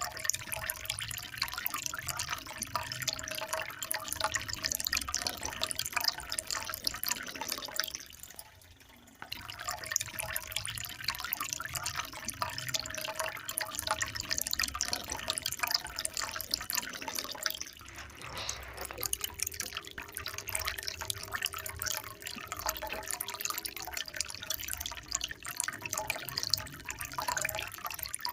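Water trickling and splashing steadily with many small drips. It drops away almost to nothing for about a second around eight seconds in, then carries on.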